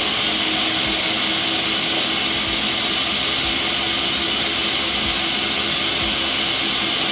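Countertop blender running steadily, chopping fresh green herbs into green seasoning, its motor giving a loud even whir with a steady hum underneath.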